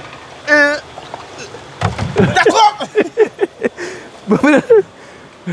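People talking and calling out in short phrases, with one drawn-out call just after the start; no words are made out.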